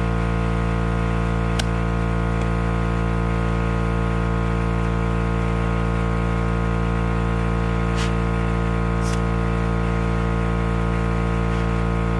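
Small air compressor running steadily while inflating a tractor's slow-leaking front tire: a constant hum with a slight regular pulse. There is a click after about a second and a half and two short air hisses later on.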